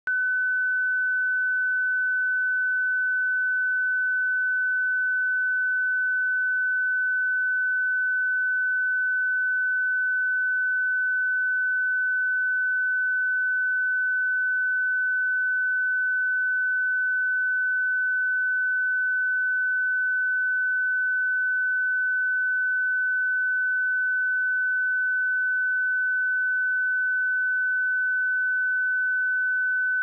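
A pure 1507 Hz sine-wave test tone, held steady at one pitch and level throughout.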